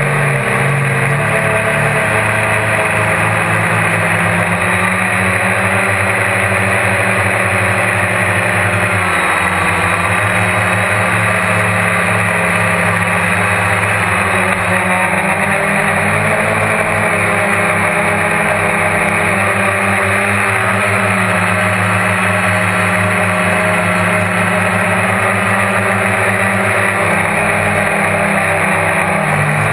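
GAUI QuadX quadcopter's electric motors and propellers buzzing steadily in flight, heard from on board. Their pitch wavers up and down as the throttle changes.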